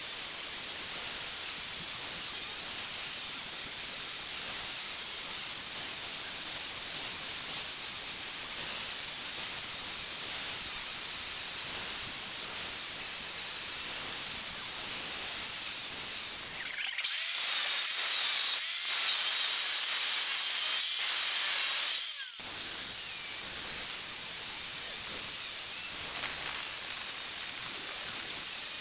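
Angle grinder with a cut-off disc cutting a steel bar: a steady, high-pitched grinding hiss. It jumps abruptly louder for about five seconds past the middle, then drops back.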